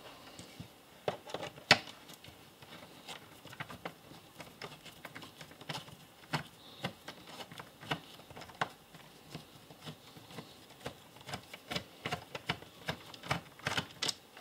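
Irregular light clicks and ticks of a screwdriver turning a tri-wing screw out of a plastic battery charger housing, with one sharper click about two seconds in.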